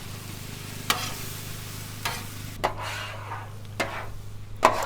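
Pineapple rings and bacon sizzling on a Blackstone flat-top griddle: a steady frying hiss, with about five short sharp clicks scattered through it.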